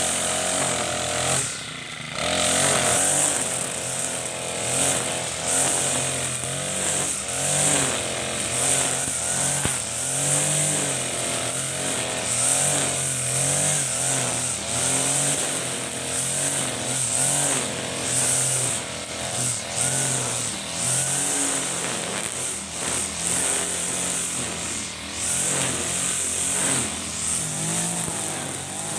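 Backpack brush cutter with an Ogawa GX35 four-stroke engine running under load, its pitch rising and falling as the throttle is worked, with the nylon trimmer line whipping through grass. The engine briefly drops back about two seconds in.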